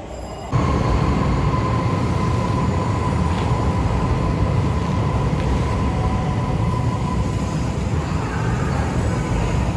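JR Hokkaido 733-series electric train running along the platform: a steady low rumble with a thin, steady whine above it. It begins abruptly about half a second in.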